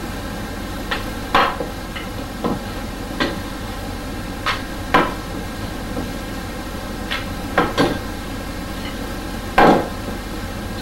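Wooden rolling pin knocking and clacking against a wooden board while dough is rolled out by hand: about ten irregular knocks, the loudest near the end as the pin is set down.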